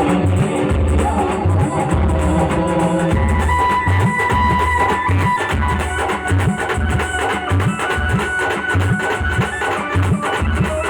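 Star band playing an instrumental passage of a devotional folk song: a steady, even drum beat under a melody of long held notes.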